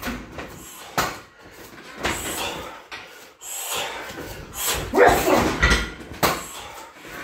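Strikes landing on a heavy bag hung from a steel freestanding stand: a sharp smack about a second in and another a little after six seconds. Around five seconds there is a loud, harsh, voice-like cry, the loudest sound.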